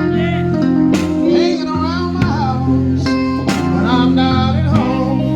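Live slow blues from a keyboard, guitar and harmonica trio, with sustained low keyboard notes under a lead line that bends and wavers in pitch.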